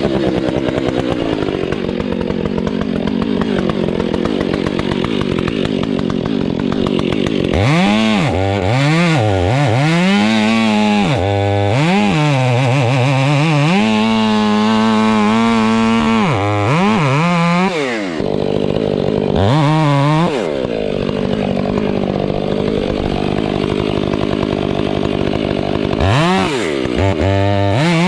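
Chainsaw running, first at a steady speed, then revved and cutting wood in several long passes, its pitch sagging and recovering as it works through the cut.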